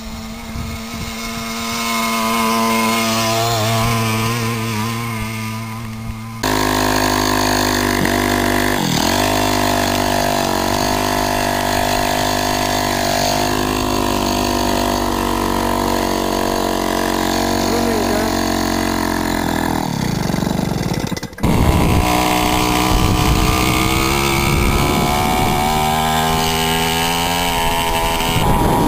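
Puch moped two-stroke engines running off-road. At first one engine swells and fades with a wavering pitch, then the sound changes abruptly twice, about six and twenty-one seconds in, into louder, steadier running.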